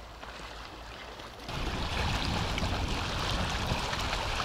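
Small waves lapping on a rocky lakeshore with wind rumbling on the microphone, turning suddenly louder about a second and a half in.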